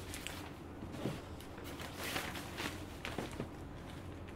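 Scattered soft knocks and rustles of shopping bags and shoe boxes being handled at a shop counter, over a steady low hum.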